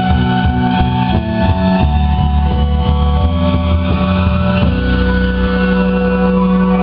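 Live rock band playing instrumentally with electric guitar and bass in a steady rhythm, then settling about two-thirds of the way in on a long held chord that rings on.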